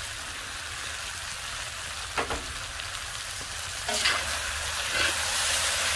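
Sliced bell peppers and onions sizzling in oil in a cast iron wok heated to about 400 °F over charcoal. About four seconds in, metal tongs start stirring and scraping them, and the sizzle grows louder.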